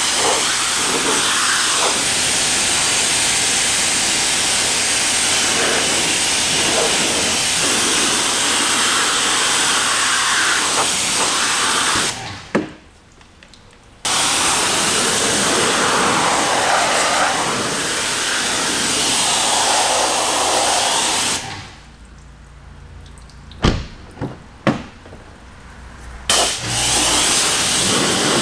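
Pressure washer spraying water onto a car in long steady runs. The spray cuts off about twelve seconds in for a couple of seconds, then again for about five seconds near the end, with a few sharp clicks while it is off.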